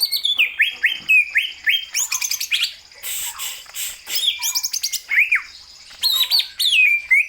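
Green leafbird (cucak hijau) in full song: a fast, varied stream of chirps, sliding whistles and short trills.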